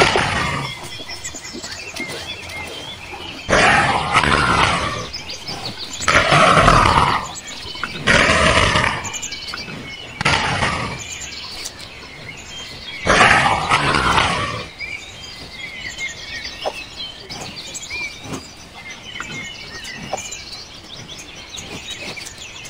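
Big cat snarling in a series of about six loud calls, each around a second long, over a background of small birds chirping. The calls stop about two-thirds of the way through, leaving only the birdsong.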